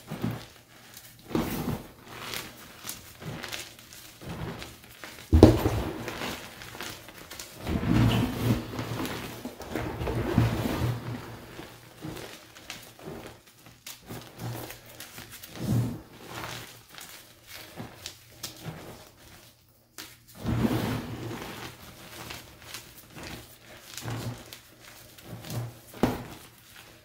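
Hands crushing and squeezing a box of crumbled Picsil gym chalk blocks, plain and dyed, in irregular crunches and soft powdery thuds, the sharpest crunch about five seconds in.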